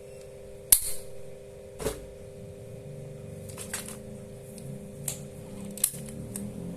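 Needle-free injector pen firing with one sharp, loud snap about a second in, followed by several smaller clicks as the pen is handled and reset, over a steady hum.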